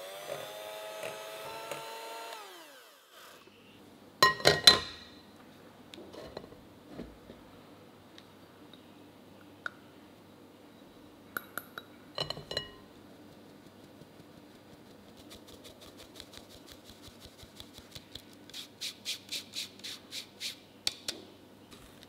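Electric hand mixer beating stiff cookie dough in a glass bowl, its motor whine falling in pitch as it switches off about two and a half seconds in. Then a few loud ringing clinks on the glass bowl, and in the second half a run of quick, even taps as flour is sifted through a mesh sieve into the bowl, growing louder near the end.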